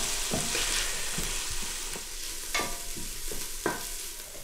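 Wooden spoon stirring and scraping in a large stainless steel pot on the stove, over a steady hiss of the hot pot. Two sharp clicks come about two and a half and three and a half seconds in.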